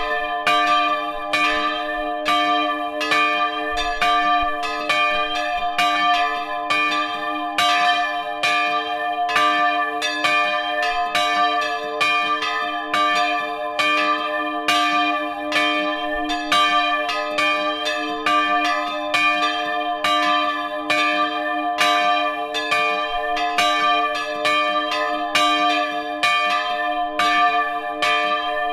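Bronze church bells swinging in a wooden belfry and ringing together, heard up close. Their clappers strike in a steady, overlapping rhythm, over a long ringing hum that never dies away between strokes.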